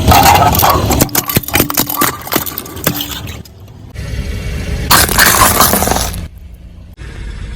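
Objects crunching and cracking under a car's tyre, with dense snapping and breaking in two loud bursts broken by sudden cuts.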